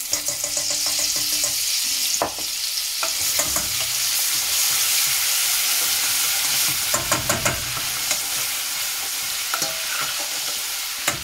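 Garlic-ginger paste frying and sizzling in hot oil in a stainless steel saucepan, stirred with a metal spoon that scrapes and knocks against the pan, with a flurry of knocks about seven seconds in.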